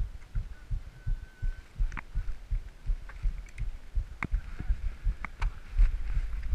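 Mountain bike rolling over a bumpy dirt track, heard through a handlebar-mounted camera: irregular low thuds and rumble as the bars jolt, with a few sharp clicks.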